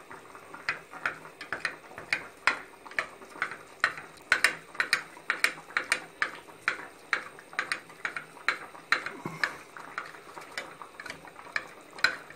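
A spoon stirring sauce thickener in a plastic cup, clicking against the cup's sides about twice a second in a steady rhythm.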